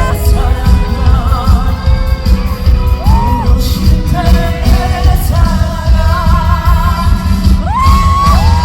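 Live trot song sung by a male singer over an amplified band backing with a heavy, pulsing bass beat. The singer holds long notes with vibrato, once about three seconds in and again near the end.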